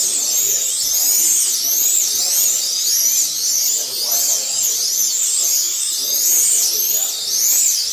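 Several 1/32-scale Eurosport slot cars racing, their small electric motors whining high and overlapping, each pitch rising and falling over and over as the cars accelerate and brake around the track.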